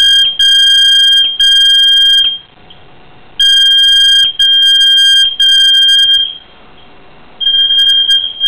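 Apartment building fire alarm sounding, a loud, piercing high beep repeated in groups of three with about a second's pause between groups: the three-beep evacuation signal. Excruciating.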